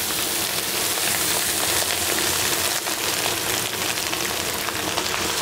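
Pieces of catfish sizzling in hot oil and chilli paste in a wok as they are tipped in, a steady hiss.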